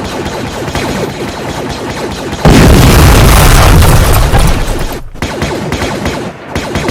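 Battle sound effects: a dense volley of rapid shots, then a loud explosion about two and a half seconds in that lasts over a second, before the shooting picks up again.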